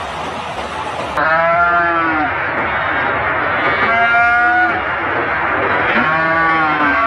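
Cattle mooing: about four drawn-out calls, each around a second long, over a steady rushing noise.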